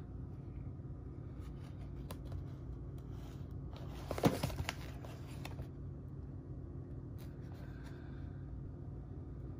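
Cardboard-and-plastic blister packaging handled and turned over, crackling and clicking for about a second and a half, loudest a little after four seconds in. A steady low hum sits underneath throughout.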